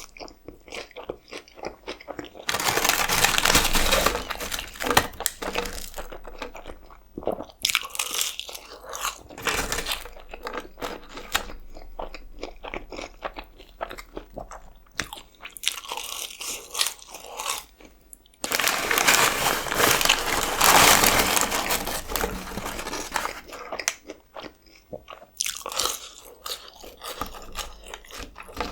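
Close-miked eating: a person biting and chewing a cheeseburger and fries, with wet, crunchy chewing sounds. Two longer, louder stretches of dense chewing come a few seconds in and again past the middle, with quieter clicks of chewing between.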